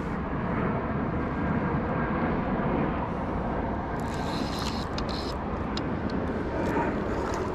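Steady noise of road traffic, with a short run of light clicks about four seconds in.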